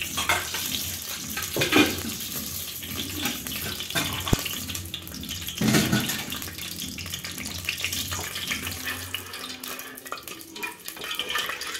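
A steady rushing hiss, as of a gas stove burner's flame under a steel pot of heating cooking oil, with a sharp click about four seconds in.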